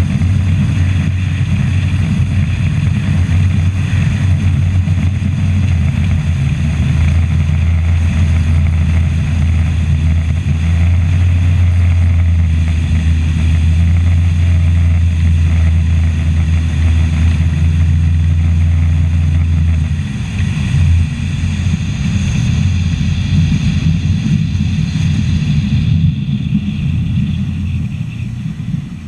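Bass boat's outboard motor running at speed, a steady low drone mixed with wind on the microphone and water rushing along the hull. About two-thirds of the way through, the drone breaks up and turns uneven.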